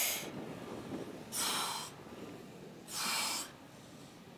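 A woman huffing and puffing during crunches: a sharp exhale with each crunch, three times, about a second and a half apart, from the exertion of a long nonstop set.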